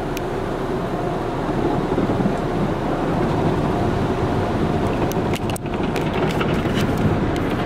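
Automatic car wash spraying water and soap foam over a car, heard from inside the cabin as a steady loud rush. A few short clicks come between about five and seven seconds in.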